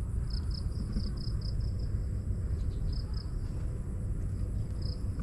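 Steady low outdoor rumble, with short runs of rapid, high insect chirps several times over it.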